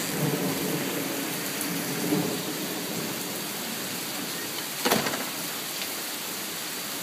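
Heavy rain falling steadily, with a low rumble in the first couple of seconds and a single brief knock about five seconds in.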